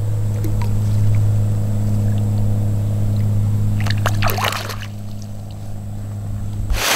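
Water splashing and dribbling about four seconds in as a hand slips a largemouth bass back into the river, over a steady low hum. The hum stops near the end as a loud rush of noise begins.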